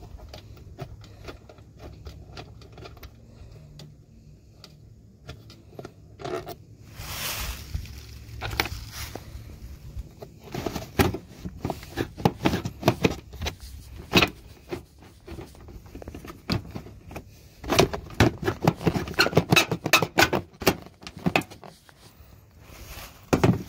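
Plastic air box and intake coupling of a 1992 Lexus LS400 being worked loose and lifted out: clicking, scraping and clattering of plastic parts and tools, in busy clusters through the second half, with a brief hiss about seven seconds in.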